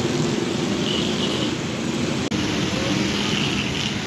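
Samosas deep-frying in a karahi of hot oil, a steady sizzle, over constant street traffic noise. A single click about two seconds in.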